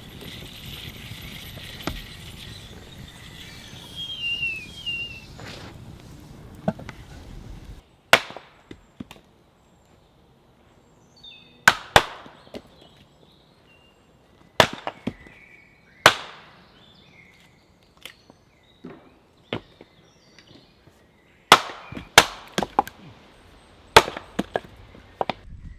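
Chopping on a wooden block: about a dozen sharp, loud strikes with short ringing tails at irregular intervals, some in quick pairs, starting about eight seconds in. Before them there is a steady outdoor background hiss.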